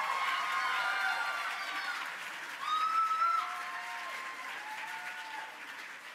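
Audience applauding and cheering, with several high whoops over the clapping; the loudest whoop comes about three seconds in, and the applause slowly dies down.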